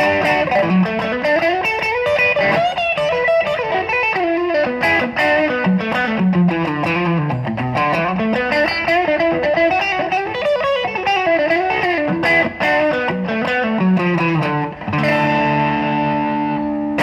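Electric guitar played through a TC Electronic El Cambo overdrive pedal, a distorted single-note lead line with quick runs up and down. It settles into a held, ringing chord near the end.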